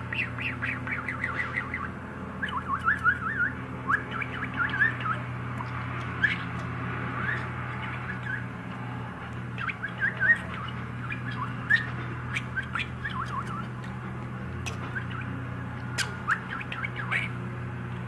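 Male budgerigar chattering: quick runs of short chirps and warbles with brief pauses, and a few sharp clicks among them. A steady low hum runs underneath.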